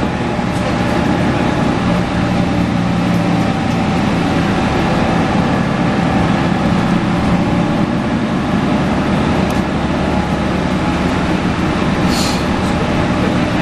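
Mercedes-Benz O530 Citaro city bus heard from inside the cabin while driving: engine running steadily under road noise. There is a short hiss about twelve seconds in.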